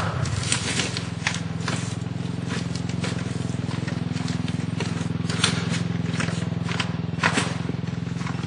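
Small off-road engine, most likely the rolled quad bike's, idling steadily, with scattered clicks and scrapes of stones and footsteps on the dirt slope.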